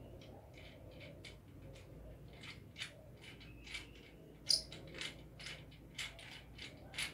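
Irregular small plastic and metal clicks and ticks as a phone-holder mount is fitted and tightened onto a ring light's tripod stand. A few sharper clicks come in the second half.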